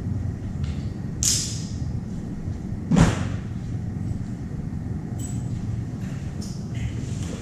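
A motorcycle helmet being put on and fastened: rustling, with a sharp knock about three seconds in that is the loudest sound, over a steady low rumble.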